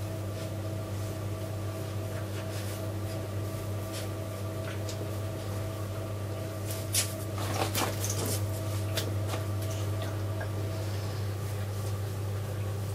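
Steady low hum with faint higher tones above it. About seven seconds in comes a brief cluster of clicks and paper rustling as a cookbook page is turned.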